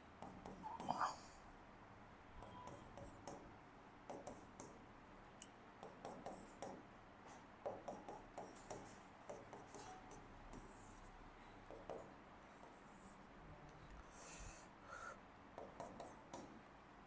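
Faint handwriting: many short scratching strokes and light taps of a writing tip on a writing surface, in irregular clusters.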